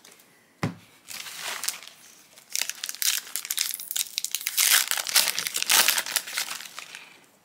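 Foil trading-card booster pack wrapper crinkling as it is torn open and peeled apart by hand. A short tap comes about half a second in, and the crinkling grows louder through the second half.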